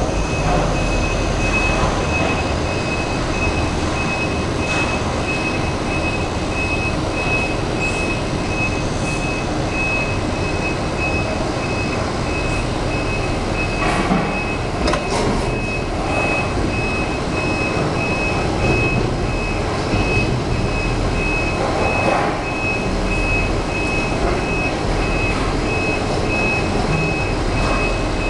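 Skip-collection truck's reversing alarm beeping over and over at an even pace over the low rumble of its running engine, with a few sharp metal clanks about halfway through.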